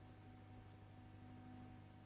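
Near silence: a faint steady hum with a few constant tones over low hiss, with no sound events.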